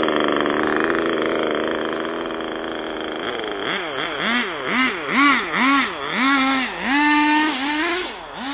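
Nitro RC car's small glow-fuel engine running at a steady pitch, then revved up and down in quick blips about twice a second, with a few longer held bursts of throttle near the end.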